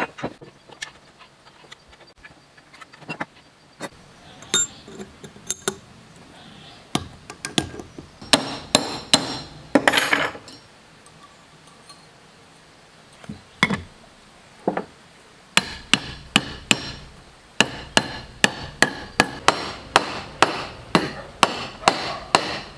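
Hammer tapping on small metal diesel-engine parts: sharp strikes, scattered at first, then a steady run of about three taps a second over the last five seconds.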